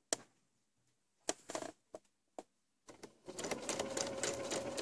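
Domestic electric sewing machine starting about three seconds in and stitching at a steady speed: rapid needle ticks over a faint motor whine. Before it, a few light clicks of handling.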